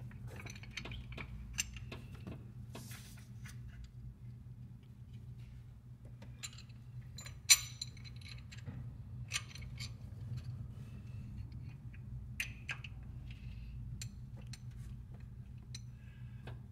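Metal clinks and taps as an aluminium power steering pump is set into its mounting bracket and its bolts are started by hand; the sharpest clink comes about seven and a half seconds in. A steady low hum runs underneath.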